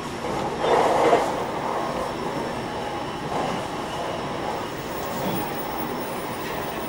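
E721-0 series AC electric multiple unit running along the track: a steady rumble of wheels on rail, with a louder, rougher rush about a second in.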